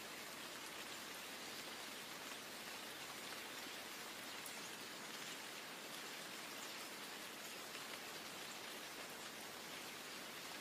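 Rain falling steadily: an even hiss with no let-up.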